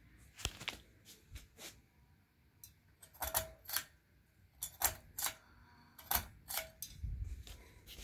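Hunter Passport ceiling fan's pull-chain switch clicking over and over as the beaded metal chain is pulled and let go, with the chain rattling. The clicks are sharp and come singly and in close pairs through the whole stretch.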